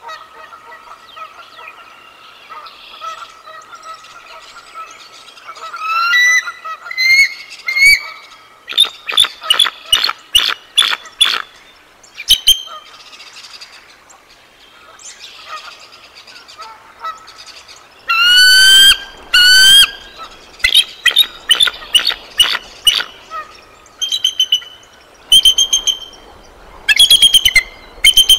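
Bald eagle giving alarm calls at an intruding eagle overhead: bursts of loud, high, sharp chirping and chattering notes, some rising in pitch, in fast runs. The calls begin about six seconds in and come in several bursts.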